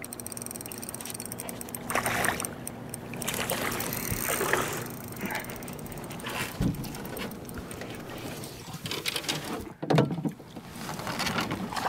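A hooked bass being played to the boat on a spinning rod: reel and rod handling in scattered bursts, then the loudest splashing and water noise at the boat's side about ten seconds in as the fish is grabbed out of the water by hand.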